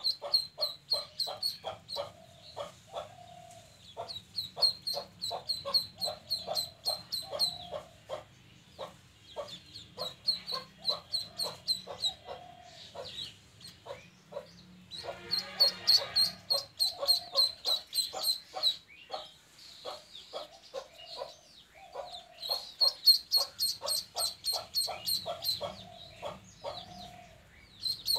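Duckling peeping in rapid runs of high, shrill peeps, with lower clucking notes underneath. About fifteen seconds in there is a short rustling scuffle.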